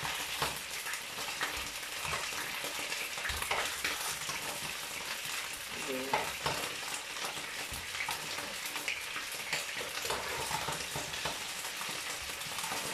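Chicken pieces, carrots and potatoes sizzling steadily in a large stone-coated frying pan, frying in their fat with no water added. Faint light clinks and taps come through now and then as potatoes are spooned in with a metal spoon.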